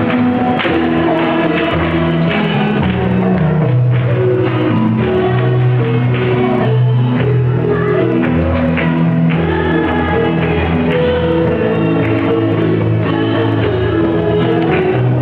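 Small live band playing: guitars and a steady bass line, with singing into a microphone.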